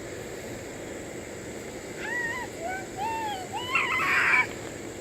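A young child's high-pitched wordless squeals and babbling. It starts about two seconds in and ends in a louder shriek near the end, over a steady low hum.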